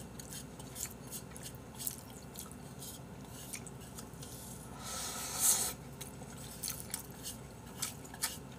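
Close-miked chewing of Jjapaghetti black-bean noodles: many short wet mouth clicks and smacks, with one longer slurp from the bowl held at the mouth about five seconds in.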